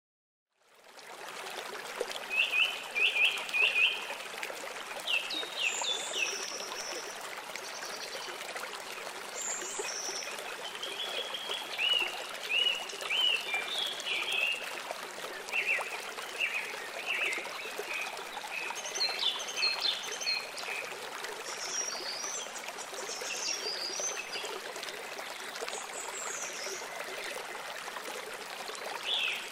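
Steady running water with several songbirds chirping and singing over it in short phrases and trills, fading in at the start.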